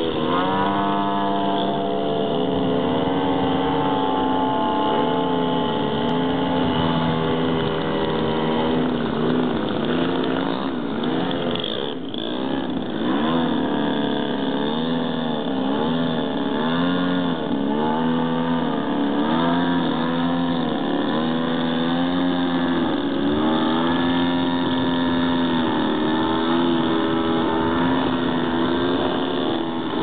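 Engines of two large-scale radio-controlled aerobatic model planes running in flight, their pitch rising and falling with throttle changes and passes, with a brief dip about twelve seconds in.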